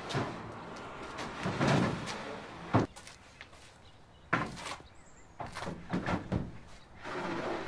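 Plywood boxes and a plywood sheet being handled on a pickup truck bed and tailgate: wood sliding and scraping, with a series of knocks and thunks, the sharpest about three seconds in.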